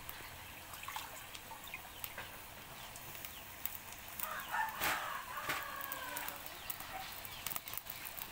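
A rooster crows once, a single rising-and-falling call about two seconds long, a little past the middle. Faint scattered clicks and crackles run underneath.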